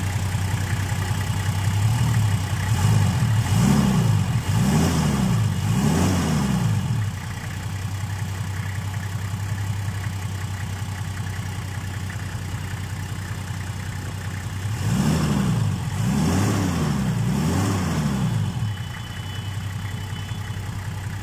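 Nissan Safari six-cylinder diesel engine idling smoothly, revved three times in quick succession a few seconds in and three times again about two-thirds of the way through. It runs well now that its injector pipes are fitted in the correct 1-5-3-6-2-4 firing order, after having been connected the wrong way round.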